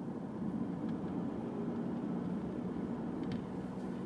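Steady engine and road noise of a 2007 Toyota Camry on the move, with a faint click about three seconds in.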